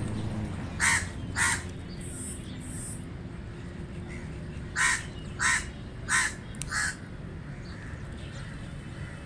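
Common raven calling: two short harsh calls about a second in, then a run of four about half a second apart near the middle.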